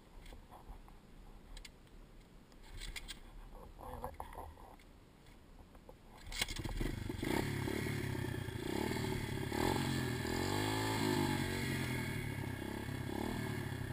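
A few faint knocks and scrapes, then about six seconds in a pit bike's small engine catches and keeps running. Its pitch rises and falls as it is revved around the middle.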